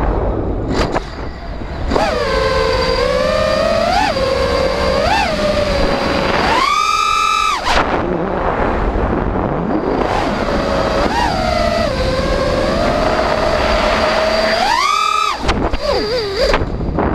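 5-inch FPV quadcopter's brushless motors and propellers whining steadily, the pitch following the throttle. There are short blips about four and five seconds in, and two hard throttle punches, about seven and fifteen seconds in, send the whine sharply higher before it drops back.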